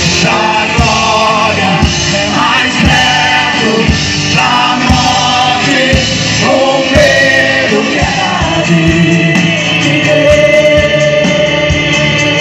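Gospel worship music: a singer with a band, drums keeping a steady beat under the sung melody.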